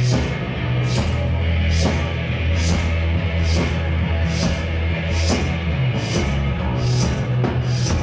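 Rock band playing live and loud: electric guitars, bass guitar and drum kit, with a heavy steady bass line and a drum and cymbal hit about once a second.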